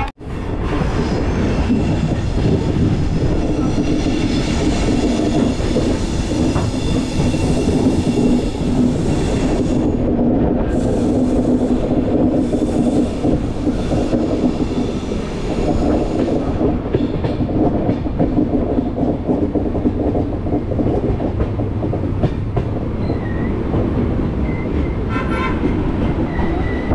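Uday Express double-decker train running on the track: a steady rumble of wheels and carriage.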